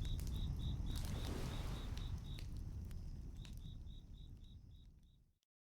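Campfire crackling with scattered pops over a low rumble, with crickets chirping in even pulses about three times a second. It all fades out and cuts to silence near the end.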